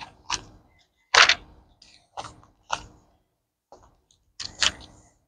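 Bible pages being flipped by hand: a series of about eight short, crisp page turns with brief gaps between them, the loudest about a second in.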